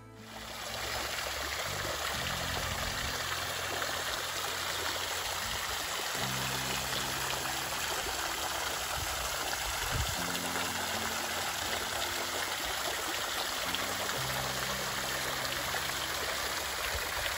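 Water from a stone bowl fountain falling and splashing into its pool, a steady rush, with soft background music underneath.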